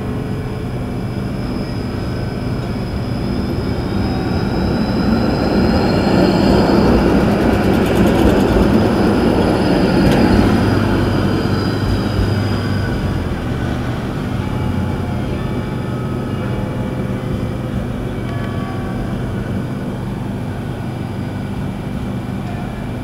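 Tram passing close by on street rails: a rolling rumble that swells to its loudest about seven to eleven seconds in and then fades away, with a high whine that slides down in pitch as it goes by.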